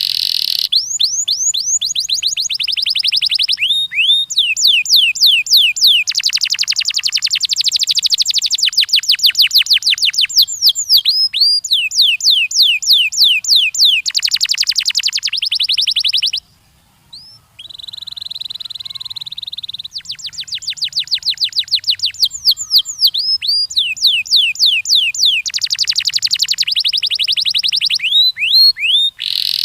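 Domestic canary singing: fast runs of rapid, repeated down-sweeping notes and trills, changing from one rolled phrase to the next. About two-thirds of the way through there is a brief break, then about two seconds of a rougher, buzzier phrase before the fast runs resume.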